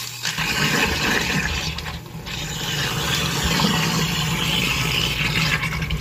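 Tap water pouring into a stainless steel sink drain packed with ice cubes, over the steady hum of an InSinkErator garbage disposal running. This is the ice trick for cleaning out a slow-moving, gunked-up disposal.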